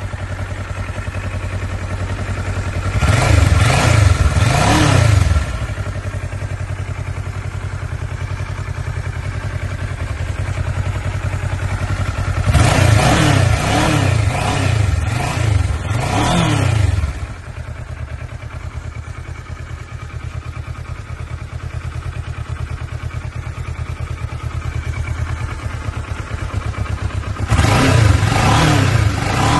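A 2013 Kawasaki Ninja 650's parallel-twin engine, on its stock exhaust, idling steadily and blipped repeatedly. Short bursts of revs rise and fall about three seconds in, again from about twelve to seventeen seconds, and near the end.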